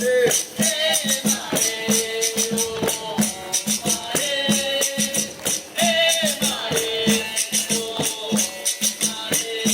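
Capoeira roda music: a steady rhythm of shaken rattle and tambourine-like jingle strokes, with a singer's held, bending notes over it.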